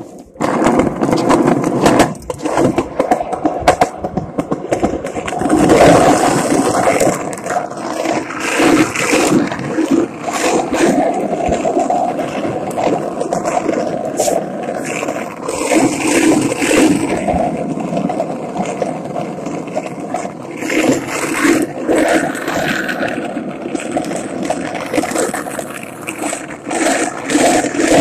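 Skateboard wheels rolling on pavement: a steady gritty rumble that swells and eases, broken by frequent sharp clicks and knocks.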